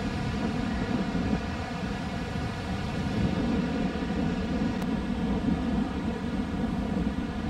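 Wind buffeting the microphone outdoors: a steady, fluctuating low rumble over a faint steady hum.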